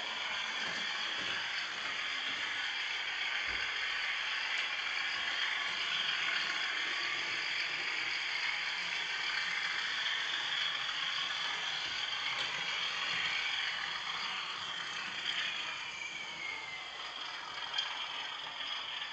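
Bachmann class 37 model diesel locomotive running along the track, its motor and gears making a steady whirring, clattering mechanical noise; the model runs noisily. A faint falling whine near the end.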